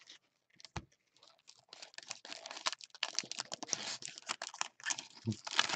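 Plastic wrappers of trading card packs crinkling and tearing as they are handled and ripped open, in a dense crackly run from about two seconds in. A single light knock comes a little under a second in, and a dull thump near the end.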